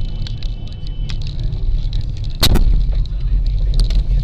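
Road and engine rumble inside a moving car, with scattered small clicks and one sharp, loud double knock about two and a half seconds in.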